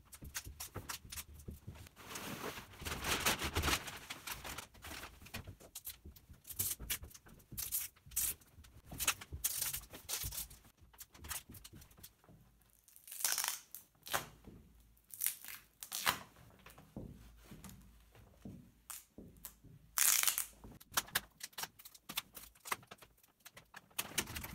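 Plastic laminating film and its backing sheet crinkling and rustling as they are peeled apart and handled, in irregular bursts of crackle.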